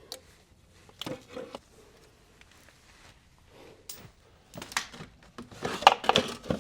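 Handling noises: a few scattered clicks and knocks, then a busier run of short rattles and scrapes in the last two seconds.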